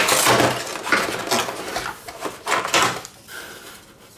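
Cardboard packaging rustling and scraping as plastic lamp-arm tubes are pulled out of a fitted cardboard insert, with light clatters of the plastic parts. The noise dies down about three seconds in.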